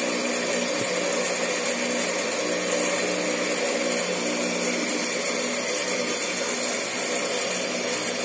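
Steady whirring of an electric motor running nonstop, a constant low hum under an even hiss.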